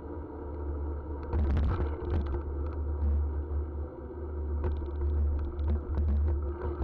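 Mountain bike rolling fast over a bumpy dirt road, heard through a handlebar-mounted camera: steady low wind noise on the microphone, with bursts of clattering knocks and rattles as the bike hits bumps, about a second in and again through the second half.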